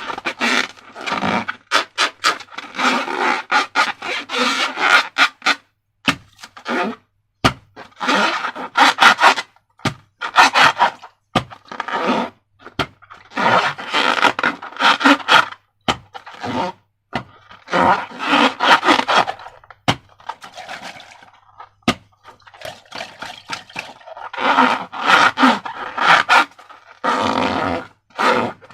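Slime and balloon rubber being squeezed and worked by hand: repeated rubbing, scraping bursts with a sticky crackle, each a second or two long, with short pauses between.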